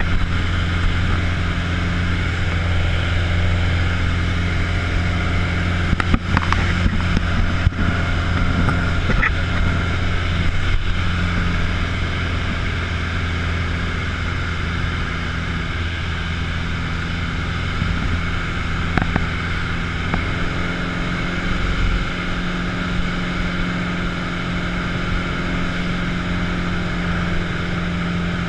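Piper Warrior's four-cylinder Lycoming piston engine and propeller droning steadily in cruise flight, heard inside the cockpit with a constant rush of airflow. A few brief clicks come about six to eight seconds in.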